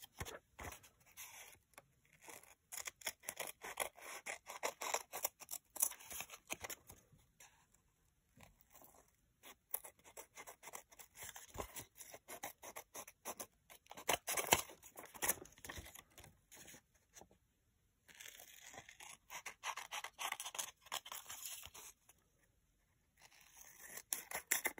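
Scissors cutting through a brown paper bag and book page: runs of quick snips, broken by a few short pauses.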